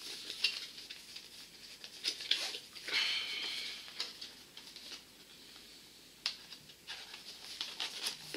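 Hands handling packaging and a small plastic device: scattered light clicks and knocks with rustling, and a louder, slightly squeaky crinkle about three seconds in.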